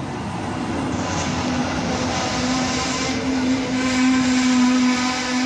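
A locomotive-hauled passenger train pulling in alongside the platform, with the coaches passing close by. There is a steady rumble of wheels on rail and a steady low hum that grows stronger as the cars go past.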